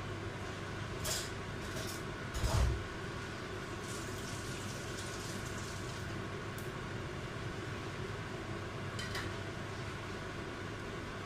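Steady low hiss and hum from the stovetop as a rolled omelette cooks in a nonstick frying pan, with a few light clicks and one dull bump about two and a half seconds in.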